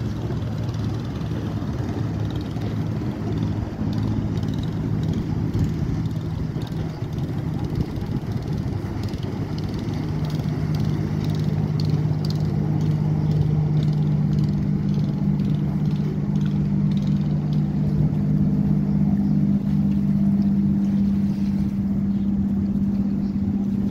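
Engine drone of a large express passenger launch running at speed past the camera, over the rush of its wash and wind. The drone changes pitch and grows louder from about ten seconds in as the boat comes closest.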